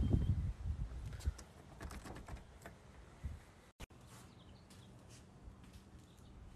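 Faint scattered clicks and rustling over a low rumble, dropping about four seconds in to near quiet with a few soft ticks.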